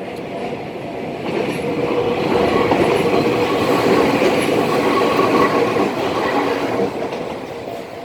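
Tokyu Ikegami Line electric train passing over a level crossing: the rumble and rail clatter swell about a second in, stay loud through the middle and fade near the end. The crossing's warning bell is ringing, heard under the start and again as the train dies away.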